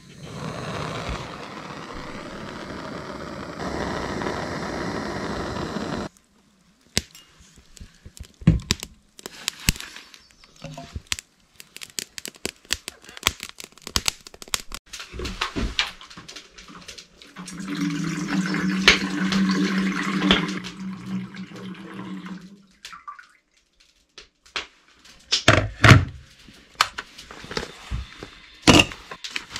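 Handheld butane torch hissing steadily for about six seconds while lighting wood in a cast-iron wood stove, then shut off abruptly. Scattered clicks follow, then a steady hum for about five seconds, and a few sharp thunks near the end, the loudest sounds in the stretch.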